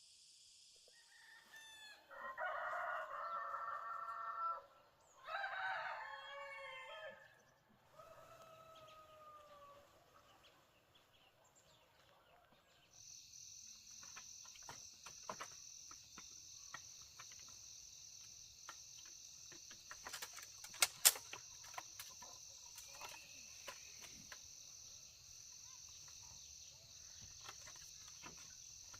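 A rooster crowing twice, loud, then a fainter crow. After that a steady chorus of crickets, with scattered sharp clicks, the loudest pair about two-thirds of the way through.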